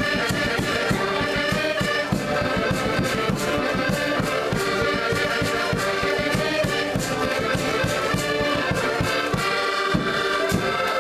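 A group of diatonic button accordions (Portuguese concertinas) playing a traditional folk tune in chords, with a bass drum beating a steady time underneath.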